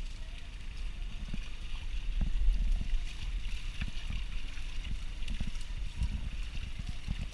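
Sea water sloshing and splashing as a fishing net is hauled up against the side of a small boat, with irregular low knocks and a steady low rumble; it is louder from about two to three seconds in.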